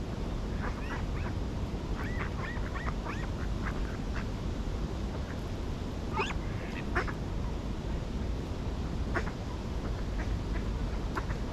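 Ducks quacking: a quick run of short calls in the first few seconds, then louder single calls about six and seven seconds in and a few scattered ones after, over a steady low background rumble.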